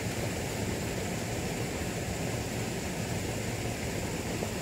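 Steady rushing noise of a swollen, flood-high river, even and unbroken, with a faint steady high tone above it.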